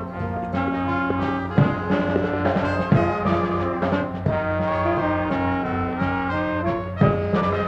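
Brass band music with held notes, trombones and trumpets to the fore, and a few sharp percussion hits.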